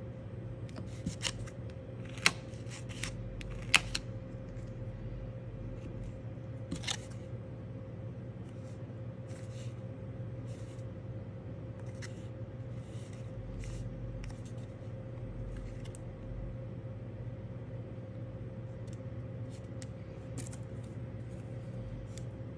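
Small sharp clicks and taps from handling nail-stamping tools (metal stamping plate, clear silicone stamper, scraper) on a tabletop, the loudest at about two and four seconds in, with lighter ticks scattered later, over a steady low electrical hum.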